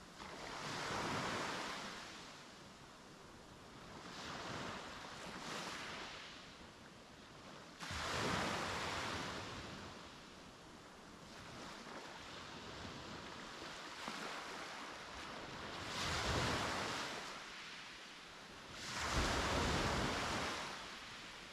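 Sea waves breaking and washing up on a beach, about five surges that each rise and fade over a second or two. One breaks with a sudden start about eight seconds in, and the loudest comes near the end.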